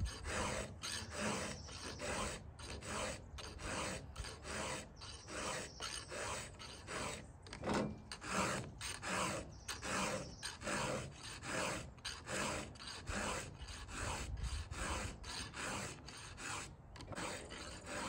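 Round file rasping across the cutters of a chainsaw chain on its bar, in quick even strokes, about three a second: the chain being hand-sharpened.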